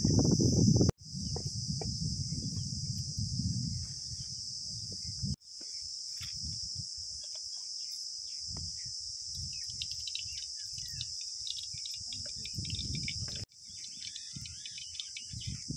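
Field crickets trilling steadily as a high, continuous chorus, broken by three brief dropouts. Scattered low rustles and knocks sound beneath it.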